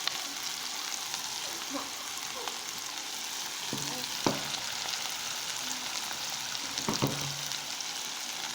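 Steady sizzle of food frying in a pan, with a sharp knock about four seconds in and another about seven seconds in.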